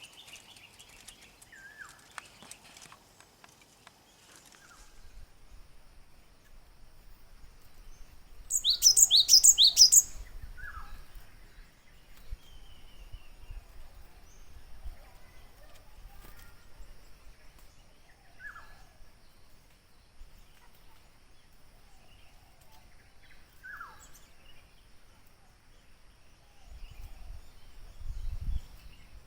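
Gelatik birds calling: scattered short falling call notes, and about nine seconds in a loud rapid burst of high chirps lasting over a second.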